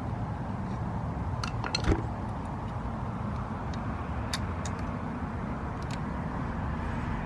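Small sharp metallic clicks and taps as brake pads are worked into a Magura MT5 hydraulic disc brake caliper, a quick cluster about two seconds in and a single click about four seconds in, over a steady low background noise.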